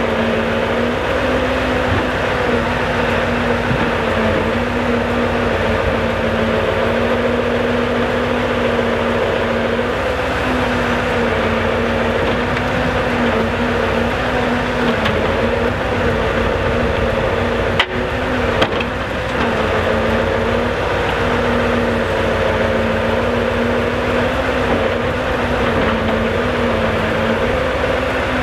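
Scania R650's V8 diesel running steadily to power the timber crane's hydraulics, a constant hum whose pitch wavers slightly as the crane works. Two short sharp knocks come about two-thirds of the way through.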